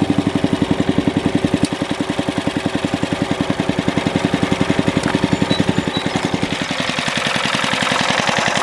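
Vintage Gravely/Hahn push mower's Briggs & Stratton engine running while mowing grass, a steady, fast, even pulse. It is fitted with new points and condenser.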